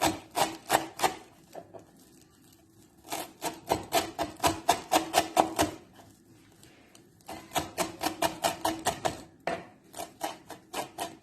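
Knife chopping parsley finely on a cutting board: rapid chops about five a second, in several runs with short pauses between them.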